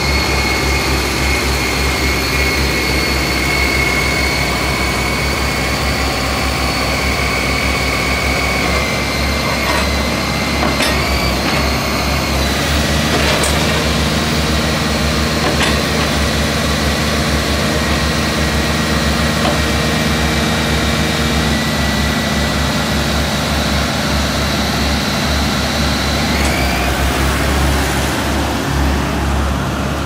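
Diesel engine of a Kobelco TLK 860 tractor loader backhoe running, a steady low rumble with a thin high whine on top that shifts in pitch about a third of the way in and rises briefly near the end.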